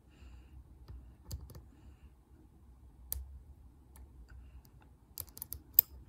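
Small metallic clicks of a dimple pick working the pins inside a Burg-Wächter Boccia 450 brass dimple padlock under tension: a few faint scattered ticks, then a quick run of sharper clicks near the end as the fourth bottom pin is brought to set.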